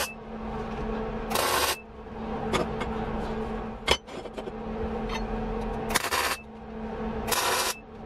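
Three short crackling bursts from a welder tack-welding a joint in steel tube, each under half a second, over a steady low hum. A sharp metal knock comes about halfway through.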